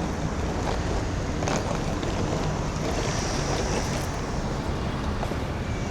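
Steady city road traffic noise, with a low rumble of wind on the microphone.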